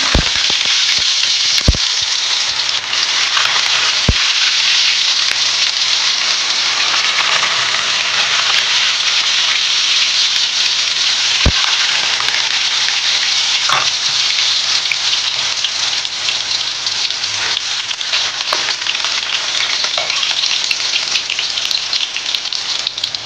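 Slabs of firm tofu sizzling loudly in hot oil in a wok, a steady frying hiss, with a few sharp knocks in the first four seconds and once about eleven seconds in.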